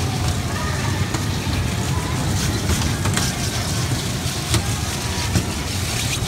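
Steady low rumble of an indoor kiddie carousel ride running, with scattered faint clicks over a noisy arcade background.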